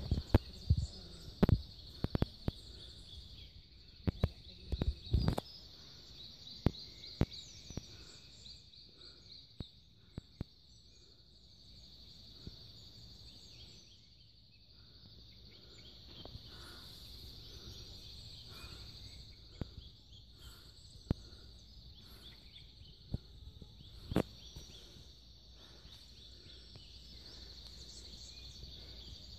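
Steady high-pitched chorus of insects, with a bird repeating a short note through the middle. Scattered sharp clicks and knocks, most of them in the first five seconds, are the loudest sounds.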